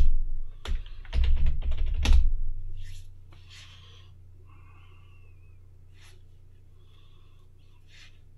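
Computer keyboard typing: a quick run of loud keystrokes with low thumps for the first two seconds or so, entering a sudo password, then a few faint single key clicks. A steady low hum runs underneath.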